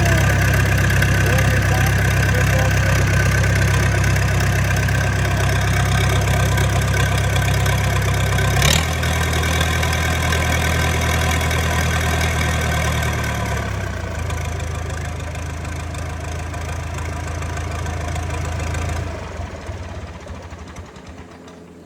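Freshly overhauled Perkins four-cylinder diesel in an Allis-Chalmers 170 tractor running steadily. About nine seconds in there is a click and its note drops suddenly, shifts again a few seconds later, and near the end the engine stops and dies away.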